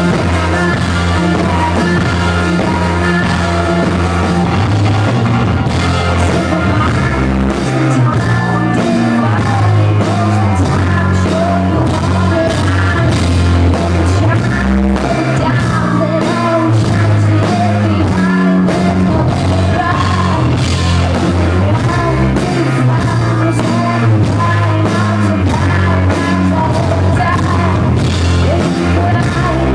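Live rock band playing loud: a woman singing lead over a steady drum beat, electric bass and keyboards.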